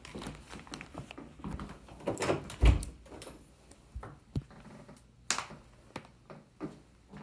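Scattered thumps and clicks of someone walking across a laminate floor in an empty room and handling a closet door. The loudest is a dull thump a little under three seconds in, with a sharp click a little after five seconds.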